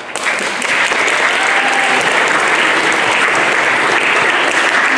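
Audience applause: many people clapping in a dense, steady patter that starts abruptly.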